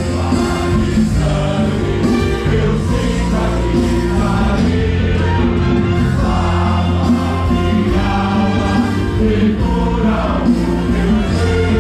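Choir singing a gospel song over instrumental accompaniment with sustained bass notes.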